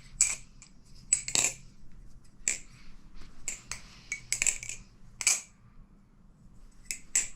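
LDY Corvus balisong with 7075 aluminium handles being flipped: handles and blade clacking together in an irregular string of sharp metallic clicks, with a pause of about a second and a half near the end.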